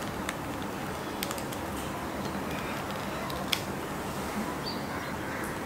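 A few faint, short clicks from a smartphone gimbal being handled and turned, over a steady room hiss.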